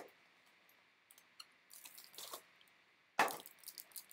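Cardboard trading-card hanger box being torn open by hand, without a cutter: faint scratching, then a sudden loud rip about three seconds in, followed by small crackles of the packaging.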